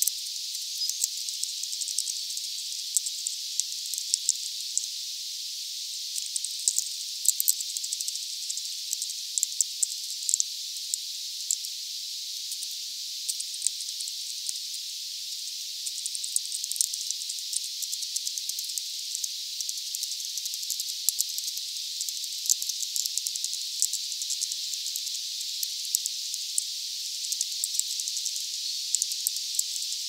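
Steady high-pitched hiss with many faint, irregular ticks scattered through it.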